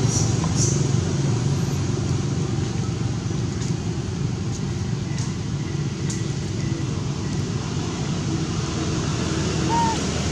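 Steady low rumble with a few faint clicks and one short high squeak near the end.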